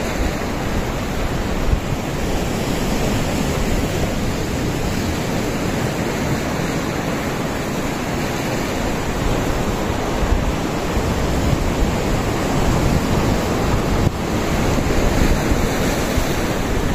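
Ocean surf breaking on rocks and washing over a reef, a steady rush of water with wind buffeting the microphone; it gets a little louder near the end.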